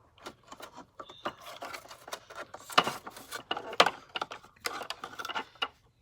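Irregular clicks and knocks of vacuum cleaner parts being handled as a drive belt is worked onto the brush roll, the two loudest about three and four seconds in.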